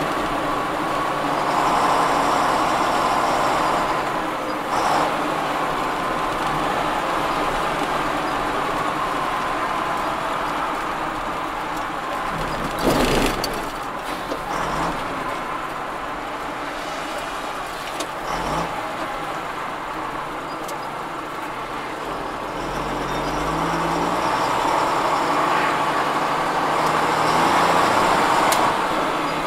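Heavy lorry driving, its engine and road noise heard from inside the cab. It eases off with a sharp clunk about halfway through, then pulls away with the engine note rising in steps through the gears.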